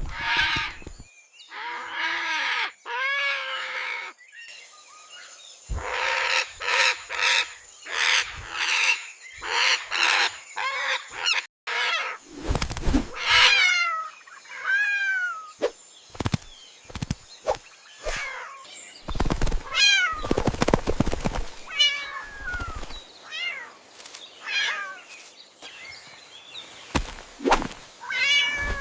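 A series of animal calls: birds calling, with wing flapping, and cats meowing in short calls that bend in pitch.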